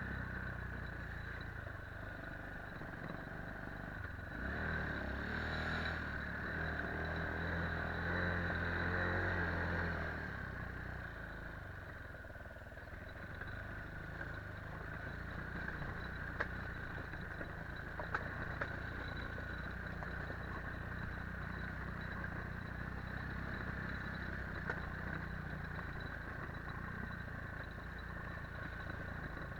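Quad bike (ATV) engine running steadily. It grows louder with a deeper note for several seconds near the start, then settles to an even run, with a few light clicks about halfway through.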